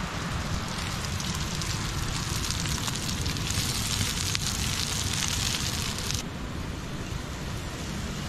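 Strips of fajita meat sizzling in oil in a griddle pan on a portable camp stove. The sizzle grows louder and brighter, drops abruptly about six seconds in, and then continues more quietly.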